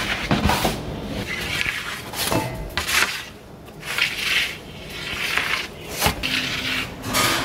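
Wooden bread peel scraping and knocking on the stone floor and ledge of a bread oven as flatbreads are slid in and moved about: a string of short scrapes and knocks.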